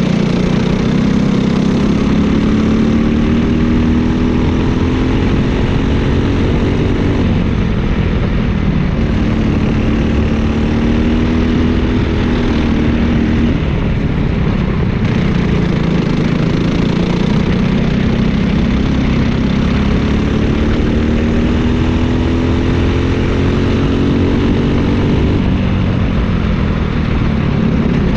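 Briggs & Stratton LO206 single-cylinder four-stroke kart engine at racing speed, heard onboard. Its pitch climbs steadily under full throttle and drops sharply about 7, 13 and 25 seconds in, as the throttle is lifted for the corners.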